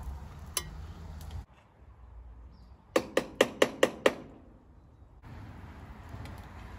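Six quick metallic clinks with a short ring, about five a second: a metal slotted skimmer being knocked against the rim of a pot to shake off the skimmed foam.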